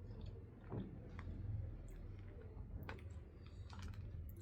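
Scattered soft clicks and ticks of someone eating with chopsticks, over a steady low hum.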